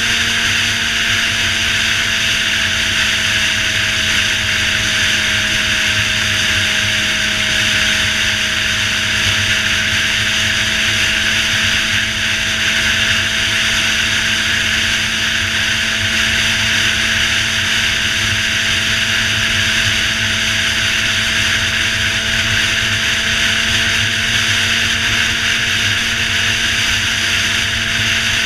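Suzuki GSX-R 600 inline-four engine droning at a steady highway cruise, its pitch nearly constant and creeping up slightly, under heavy wind rush on the microphone.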